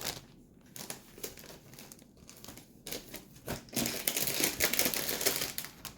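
Plastic bags of model kit parts runners crinkling as they are handled, light and intermittent at first, then a dense, louder crinkling through the second half.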